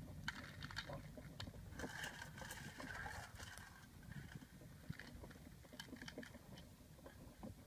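Faint, scattered clicks and light clinks of cooked shellfish shells against a metal bowl and a plate as they are picked out and eaten, over a low steady rumble of wind on the microphone.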